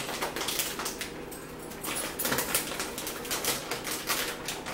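Irregular clicking and crackling of a plastic snack package being handled and worked open.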